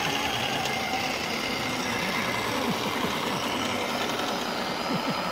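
Steady mechanical whirring from a scale RC hydraulic excavator (THS Volvo EC480D, 1:14.5) as it tips a bucketful of soil into a model dump truck and swings back to the pile, with a few wavering tones in the hum as the arm moves.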